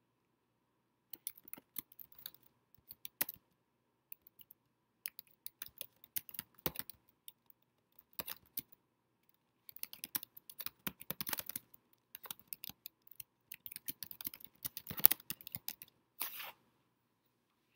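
Typing on a computer keyboard: quick runs of key clicks with short pauses between them, as a paragraph of notes is written.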